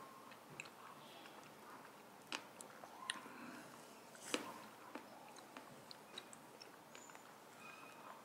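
Faint mouth sounds of a person eating chocolate gelato with chocolate chips: quiet chewing with small smacks, and a few sharper clicks about two, three and four seconds in.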